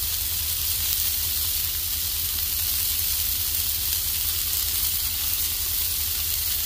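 Burger patties and butter-toasted buns sizzling steadily on a hot flat-top griddle, over a steady low rumble.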